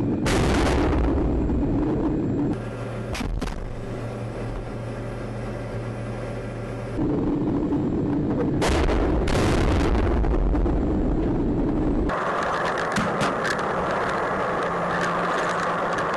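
Two heavy blasts from a T-80BV tank's main gun, one just after the start and another about eight seconds later, each dying away over a second or two. The tank's engine runs steadily through the last few seconds.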